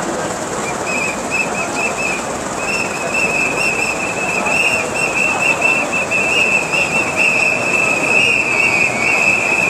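A high whistle tone held on one wavering note, coming in about a second in, breaking off briefly, then holding on, over the general noise of a crowd.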